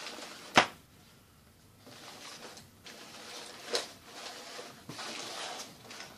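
Waterproof children's rain overalls rustling and crinkling as they are handled and folded, with their cardboard and foil tags. A sharp tap sounds about half a second in, and a softer one just before four seconds.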